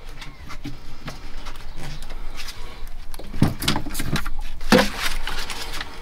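Irregular clicks, knocks and clatter of tools and parts being handled during hand work, with a few louder knocks between about three and a half and five seconds in.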